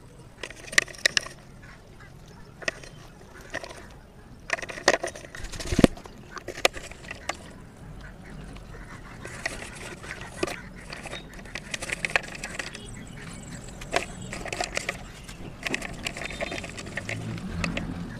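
Slate pencils clicking and clattering against one another and the steel basin as they are gathered and lifted out of the water in handfuls. The strokes come irregularly, in a busy cluster about five seconds in.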